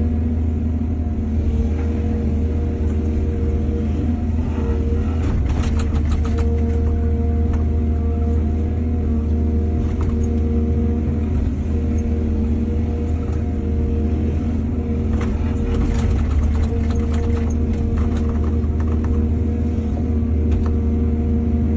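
Excavator engine running steadily under load, with bursts of clicks and knocks about a quarter of the way in and again about three quarters of the way in.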